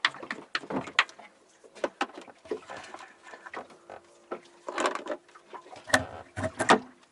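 Scattered clicks and knocks of hands unscrewing the knobs that hold a gas-locker cover panel and handling the panel as it comes off.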